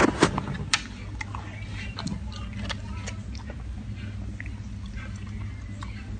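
Siberian husky chewing raw carrot: crisp crunches, several close together and loudest in the first second, then sparser ones.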